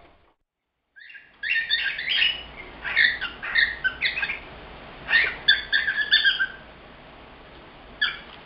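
Cockatiel calls: a rapid run of short, high chirping calls for about five seconds, then one more call near the end.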